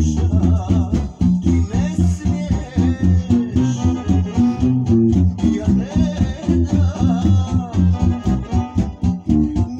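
Electric bass guitar playing a steady run of plucked low notes that change pitch every fraction of a second, with fainter higher music behind it.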